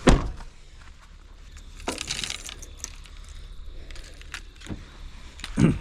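A few sharp knocks and a short rattle over a low steady rumble, with a louder thump near the end: close handling noise.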